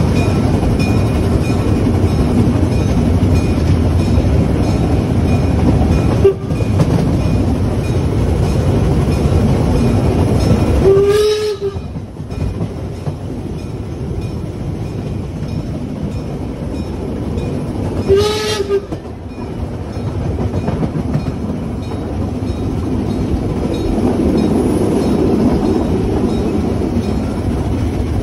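Harz narrow-gauge 2-10-2T steam tank locomotive 99 7245-6 running along the track with its train, a steady rumble of running noise. Its steam whistle gives two short blasts, about 11 and 18 seconds in.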